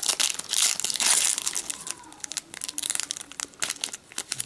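Foil trading-card booster pack being torn open and handled, its wrapper crinkling in a run of crackles that is louder in the first two seconds and softer after.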